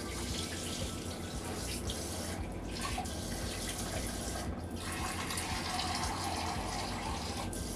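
Kitchen tap running filtered water into a cup at the sink: a steady rush of running water.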